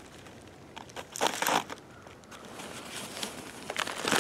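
Foil pouches of freeze-dried meals crinkling as they are handled, in a few short rustles, the longest a little over a second in and another near the end.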